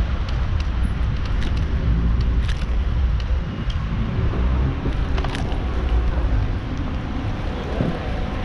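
Street noise heard from a camera strapped to a moving bicycle: a steady low rumble from riding, with car traffic in the background and a scatter of short clicks and light rattles.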